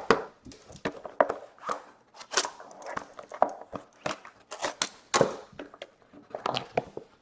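A trading-card box being opened and its contents handled: irregular sharp taps, knocks and short rustles of cardboard and wrapper.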